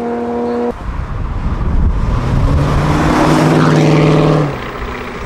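Muscle car engine held at steady revs, then, after an abrupt change just under a second in, a car engine running hard under acceleration, loudest in the middle and dropping away sharply near the end.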